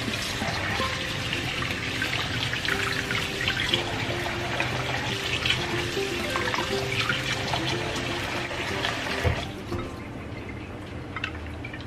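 Kitchen faucet running in a steady stream onto tofu blocks in a bowl in the sink, splashing, then shut off about three-quarters of the way through. Soft background music with sustained notes plays throughout.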